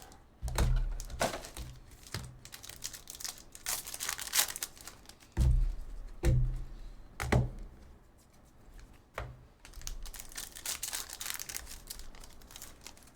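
Trading-card box and foil packs being torn open and crinkled by hand, with several dull thuds of things set down on a table; the thuds are the loudest sounds.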